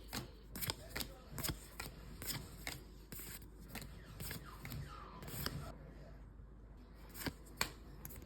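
One Piece trading cards being handled and flipped through by hand: a string of sharp card snaps, about two a second, with papery rustling between them and a short quieter pause about six seconds in.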